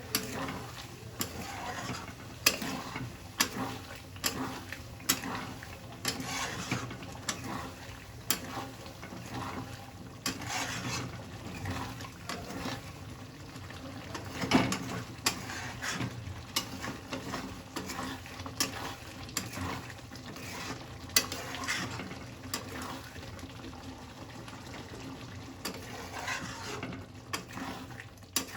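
Metal spoon stirring in a cooking pot, with irregular clinks and scrapes against the pot about once or twice a second, one knock in the middle louder than the rest.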